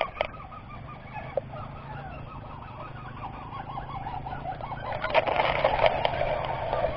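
Crake calls: a fast string of short, repeated rising-and-falling notes, growing louder about five seconds in.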